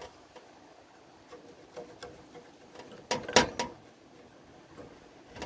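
Faint scrubbing and handling as a Q-tip cleans around the start push button on an electric stove's control board, with scattered light ticks and a quick run of about four sharp clicks a little past three seconds in.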